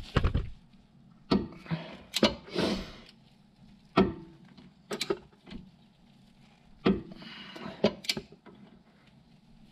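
Torque wrench being worked on a brake caliper's banjo bolt, tightening it toward 14 ft-lb: irregular metal clicks and knocks of the wrench, a few at a time, with short scuffs between them.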